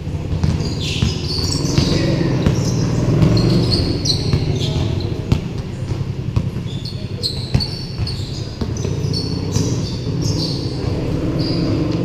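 Basketball bouncing on a hard court in play, with repeated sharp dribble thuds, short high sneaker squeaks and players' voices in the background.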